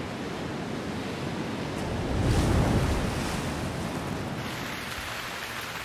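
Rough sea: waves churning and crashing, the loudest surge about two and a half seconds in, easing into a steady hiss.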